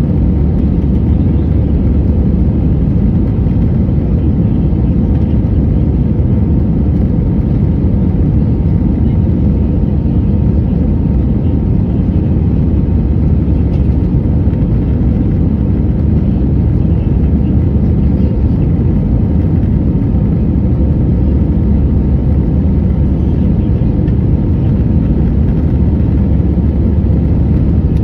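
Airbus A320 cabin noise during the climb after take-off: the steady, loud, low noise of its CFM56 engines at climb power and the air rushing past the fuselage, with a faint steady hum.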